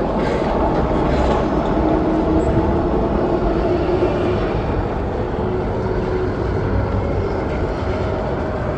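Tornado storm effects from the show's soundtrack played loud through the venue's sound system: a steady rumble of wind noise with a few faint held tones in it.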